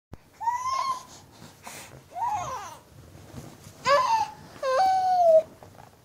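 Baby's high-pitched vocal squeals: four short cries, with a brief breathy puff between the first two. The last cry is longer and falls slowly in pitch.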